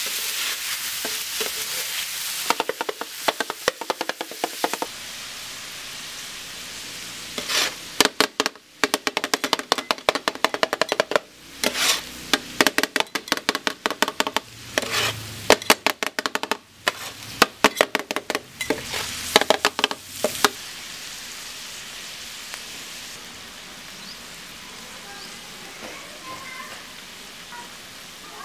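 Minced beef sizzling on a flat iron tawa griddle, with two metal spatulas clattering fast against the griddle as the meat is chopped and stirred. There is a short spell of clatter a few seconds in, then a long spell of rapid strikes with a ringing metallic tone. Steady sizzling is left alone near the end.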